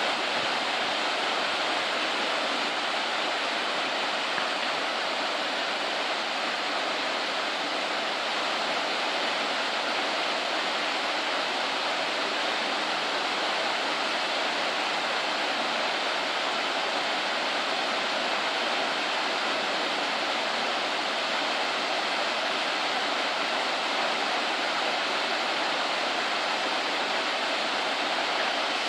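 Waterfall crashing: a steady, unbroken roar of falling water.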